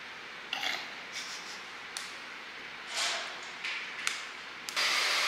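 Soft rustles and a couple of small sharp clicks from jewelry, its gift boxes and packaging being handled, over a faint steady hiss. Near the end a louder steady hiss starts.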